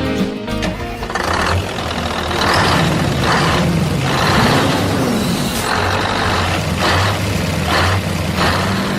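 Truck engine running with a steady low drone, overlaid by repeated short hissing bursts.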